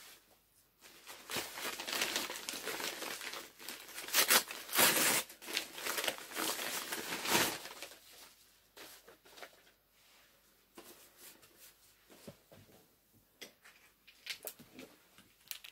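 Paper packaging crinkling and rustling as a wrapped parcel is handled. The crinkling is denser and louder in the first half, then thins to quieter, scattered rustles and small clicks.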